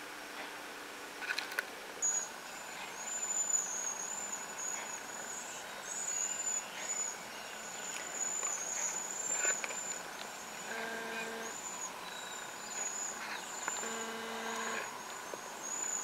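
A flock of cedar waxwings giving their thin, very high-pitched calls, many short calls in close succession. Two brief low tones sound about three seconds apart in the second half.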